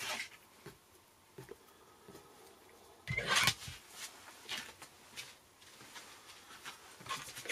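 Quiet handling of paper and cardstock on a craft table: a soft rustle as the freshly trimmed card is lifted away, a louder rustle about three seconds in, a few light ticks, and a sharp click near the end.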